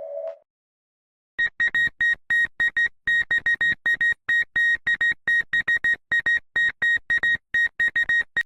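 Electronic emergency-alert alarm tone. A steady lower tone cuts off just after the start, and after about a second of silence comes a fast series of short high-pitched beeps, about three to four a second in an uneven rhythm.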